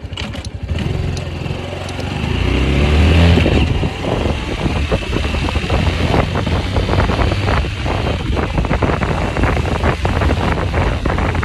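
Honda Cross Cub's single-cylinder four-stroke engine starting, revving up briefly around two to three seconds in, then running on with a rapid, uneven clatter: the abnormal noise the owner is trying to trace.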